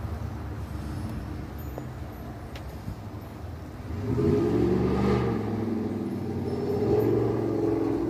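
A motor vehicle engine running steadily, then growing louder with slight rises and falls in pitch from about four seconds in.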